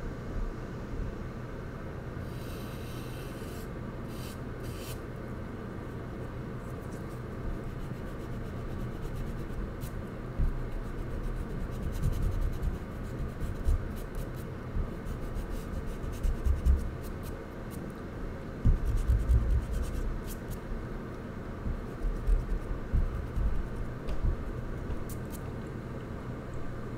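Charcoal scratching and rubbing across paper taped to a wall in quick drawing strokes, with irregular low bumps as the hand and tool press on the sheet, busiest in the middle of the stretch.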